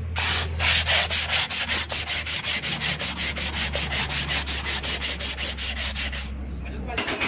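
Cast-iron brake disc being hand-sanded with sandpaper in fast back-and-forth rubbing strokes, several a second, to clear rust and carbon off its face. The rubbing pauses about six seconds in and starts again near the end.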